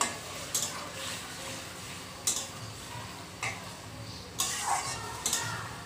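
Spatula stirring chunks of okra and potato in a thin curry in a metal kadai. It scrapes and taps against the pan about once a second, over a faint steady hiss.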